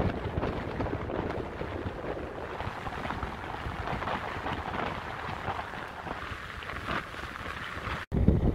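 Rushing wind and tyre noise from a vehicle driving along a freshly surfaced motorway, a rough, crackly hiss. Near the end it cuts off abruptly and a louder low rumble takes over.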